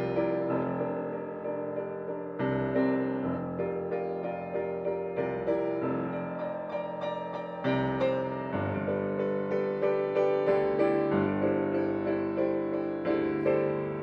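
Solo piano playing a song accompaniment with no voice: a flowing line of quick notes over held bass notes that change every second or two.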